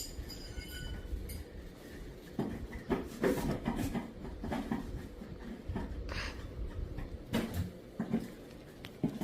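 Scattered light knocks and clinks, with a brief metallic ring just after the start.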